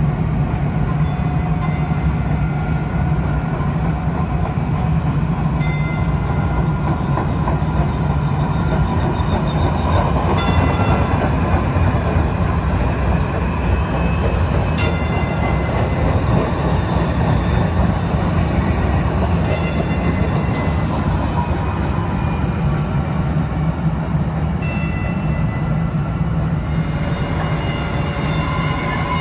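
Kinki Sharyo light rail train running past on street track: a steady rumble of wheels and motors, fullest around the middle, with a few sharp clicks every few seconds.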